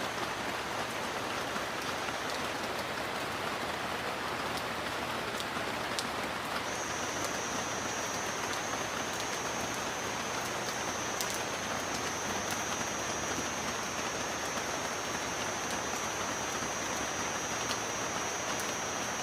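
Steady rain falling, an even hiss with scattered sharper drop ticks. A thin, steady high tone stops about two seconds in and comes back about seven seconds in.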